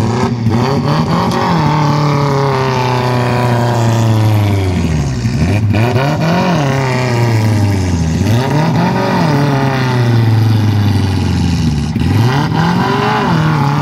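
Off-road 4x4 engine revving hard and easing off several times, the pitch rising and falling in long swells, as the vehicle claws for traction through deep mud.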